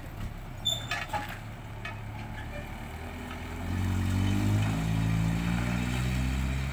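Pickup truck engine pulling away while towing a trailer loaded with a mini excavator: a low engine hum that grows louder about three and a half seconds in as it accelerates.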